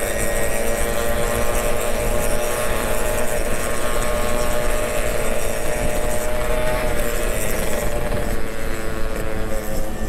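Yamaha RX King two-stroke single-cylinder motorcycle engine running steadily at cruising speed, heard from the rider's seat with wind rumbling on the microphone. The engine note dips a little about seven seconds in.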